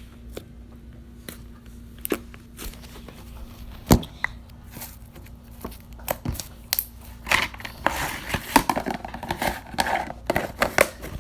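Slime and its plastic containers being handled: scattered light clicks and one sharp knock, then a few seconds of dense crinkling and crackling near the end.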